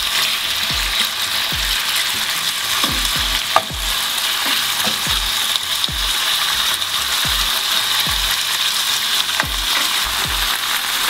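Strips of marinated beef sizzling loudly and steadily in hot oil in a non-stick frying pan on high heat, searing. A wooden spatula stirs them, knocking and scraping the pan about once a second, with one sharp click about three and a half seconds in.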